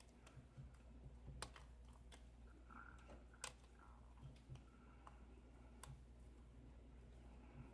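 Faint clicks and light scratching of a lock pick working the pins of a Schlage KIK 5-pin lock cylinder under light tension during single-pin picking. The clearest clicks come about a second and a half, three and a half, and six seconds in.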